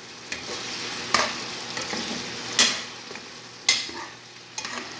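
Sliced mushrooms sizzling and simmering in a little water in a frying pan, while tongs stir them and scrape the pan in a few sharp strokes, three of them louder, about a second apart.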